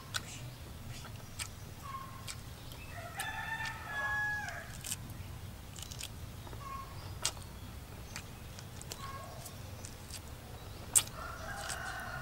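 A rooster crowing: one held crow about three seconds in and a second call near the end, over short calls and scattered sharp clicks.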